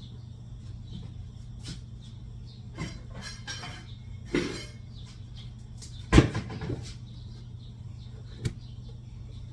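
Kitchen handling sounds: scattered knocks and clatters of utensils and dishes on a counter, the loudest about six seconds in, over a steady low hum.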